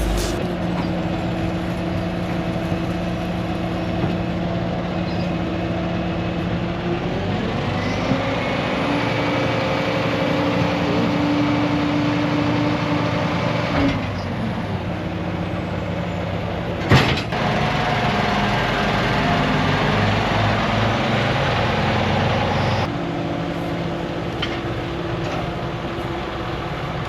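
Engine of heavy machinery running steadily, in several spliced stretches, with one sharp knock about seventeen seconds in.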